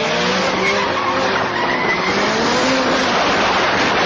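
A car driven hard through a turn: a wavering whine that slowly rises and falls in pitch, over loud rushing road and wind noise.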